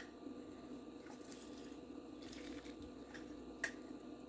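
Faint squishing of a lime being squeezed in a handheld citrus press, with one light click near the end.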